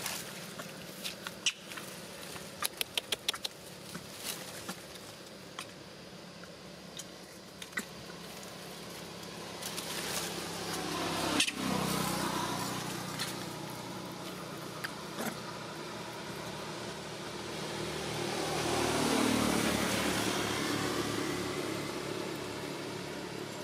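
A motor vehicle's engine passes by twice, each time rising and then fading, the second pass the louder. Scattered sharp clicks and taps come in the first several seconds.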